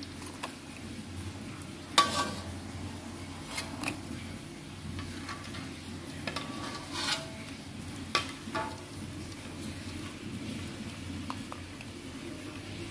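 A metal cooking utensil stirring and clinking against a pan: a handful of sharp ringing knocks, the loudest about two seconds in, over a steady low hum.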